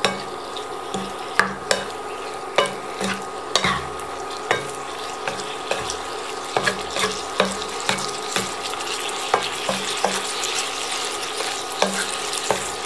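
Wooden spatula scraping and clacking against a nonstick frying pan as cubes of pork belly are stir-fried in a little water with curry paste and shrimp paste, over a steady sizzle. The strokes come irregularly, several a second at times.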